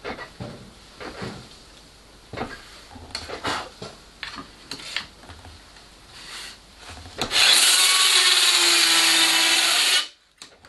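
Scattered knocks and rubbing from handling the workpiece and track. About seven seconds in, a Bosch 12-volt cordless circular saw runs loud and steady through a cut for about two and a half seconds, then stops abruptly.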